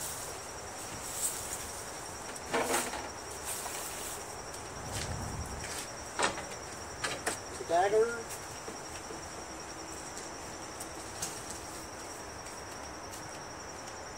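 A steady high insect trill, typical of crickets, with scattered knocks and clunks of mower bagger parts and bolts being handled and removed, and a short wavering squeak about eight seconds in.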